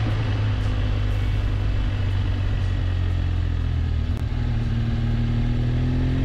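Motorcycle engine running at a steady speed under a haze of wind noise, its note rising slightly near the end.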